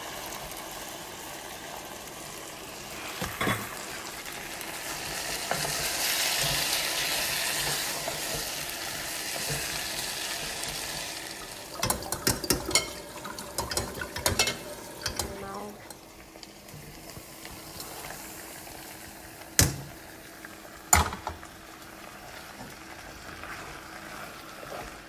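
Chicken and mushrooms in broth sizzling in a pot while a spoon stirs, with clusters of clicks against the pot about halfway through and two sharper knocks near the end.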